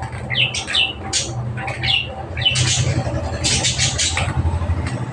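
Budgerigars chattering: a quick, irregular run of short, sharp chirps and squawks, over a low steady hum.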